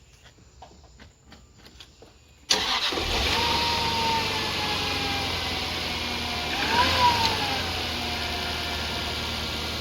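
Jaguar XJR's 4.0-litre supercharged V8 started about two and a half seconds in, catching at once and settling into a steady idle, with a whine that falls in pitch, rises briefly once and settles again. It is the test start after fitting new spark plugs and ignition coils, and it runs as it should.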